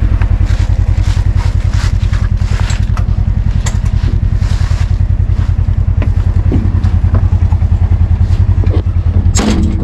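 Polaris Ranger side-by-side UTV driving along a rough dirt trail: a steady, low, pulsing engine note, with scattered knocks and rattles from the body over the uneven ground.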